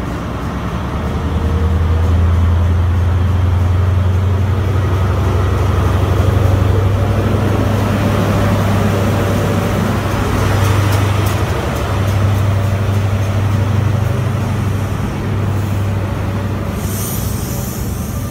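First Great Western InterCity 125 High Speed Train, a Class 43 diesel power car leading, rolling past along the platform. It makes a steady deep diesel hum that grows louder about two seconds in, over the rumble of the coaches going by, with a high hiss near the end.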